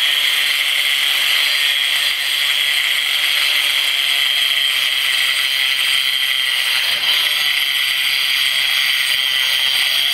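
Handheld angle grinder cutting along the grout line between ceramic floor tiles, its disc grinding steadily through the grout.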